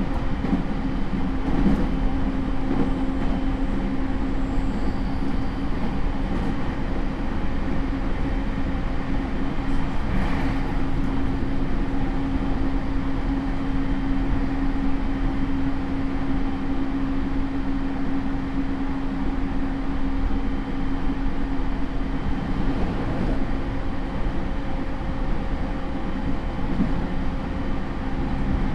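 JR East E231-series electric train with a Hitachi IGBT inverter, heard inside a motor car while running at steady speed. Continuous wheel-and-rail rumble under a steady motor hum, with a lower tone coming in near the end.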